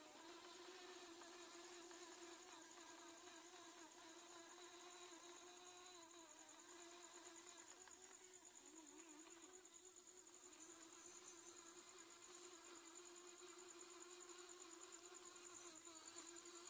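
Small electric drive motors of a homemade remote-control robot buzzing steadily as it drives, the pitch wavering a little. Above the hum runs a steady pulsing high chirping of night insects, and two brief high chirps come in the second half.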